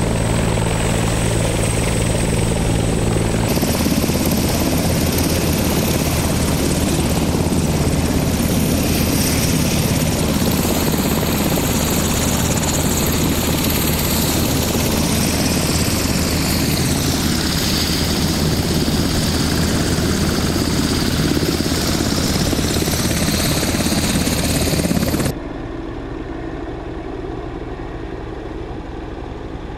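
LA County Fire helicopter's turbine and rotor running loud and steady close by. About 25 seconds in the sound cuts suddenly to the quieter, steady hum of an idling vehicle engine.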